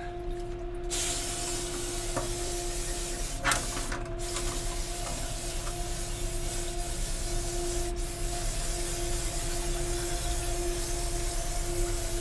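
Aerosol carburetor cleaner sprayed through its straw onto a motorcycle carburetor body: a long hiss starting about a second in, broken briefly twice. A steady low hum runs underneath.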